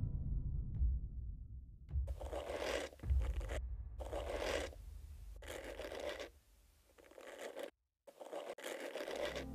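Added sound effect of a hairbrush being drawn through hair: five scraping strokes, about one every second and a half.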